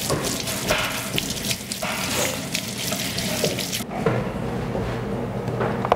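Kitchen tap running into a stainless steel sink while a carrot is scrubbed under the stream with a bristle vegetable brush. The water shuts off about four seconds in.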